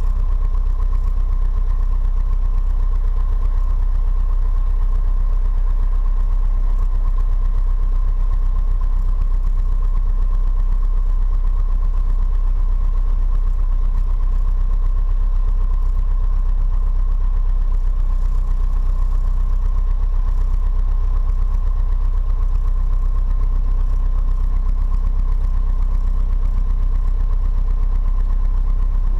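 Piper PA-28-140 Cherokee's four-cylinder Lycoming engine and propeller running steadily at low, idle-like power while taxiing, heard from inside the cabin. A thin steady whine sits above the engine drone.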